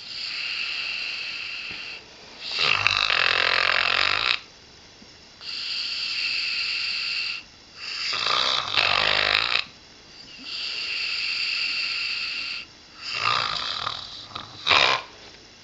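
English springer spaniel snoring through a nose blocked by a nasal tumour: three slow breaths, each a steady hissing breath followed by a louder, rougher snore. The last snore ends in a sharp snort near the end.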